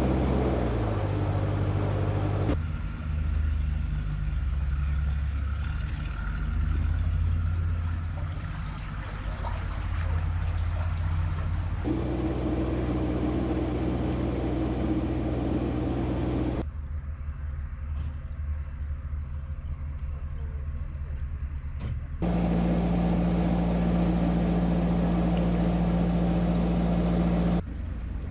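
Narrowboat diesel engine running steadily at cruising speed, heard as a string of clips that change suddenly every few seconds.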